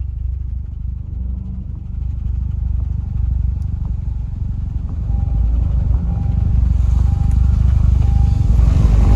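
Vehicle rumble from engine and road while driving, growing louder in the second half. From about halfway through, a short beep repeats roughly once a second.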